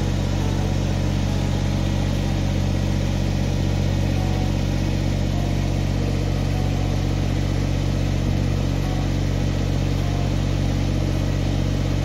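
Kubota BX25 tractor's three-cylinder diesel engine running steadily, with an even low hum that does not change in speed.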